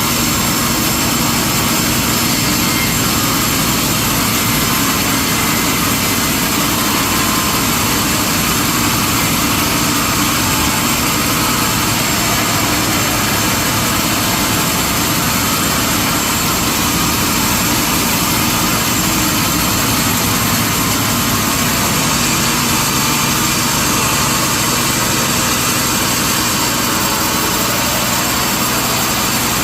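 Sawmill machinery running, a loud, steady, even noise with no pauses or changes.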